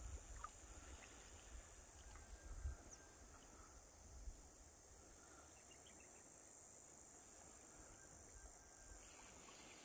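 Faint, steady high-pitched insect chorus, with a few faint snaps in the first half.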